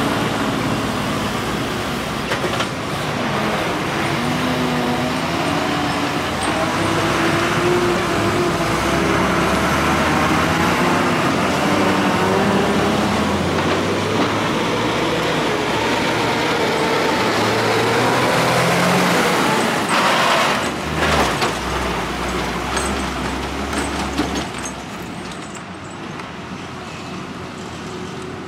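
Diesel engines of buses and a truck pulling slowly around a hairpin bend one after another, the engine note rising and falling in pitch as they change speed. A short burst of hiss comes about twenty seconds in, and the engine noise drops lower near the end.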